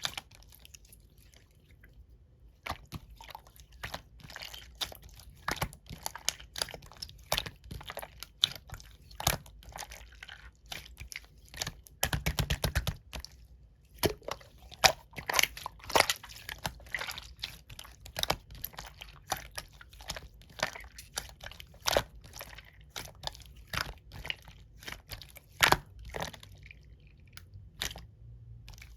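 Clear slime being squeezed and poked by hand, making irregular sticky clicks and pops, with a quick run of rapid pops about twelve seconds in.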